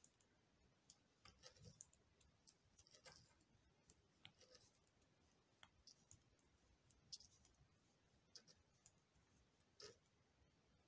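Faint, irregular clicks of knitting needles tapping together while stitches are knitted, over near silence.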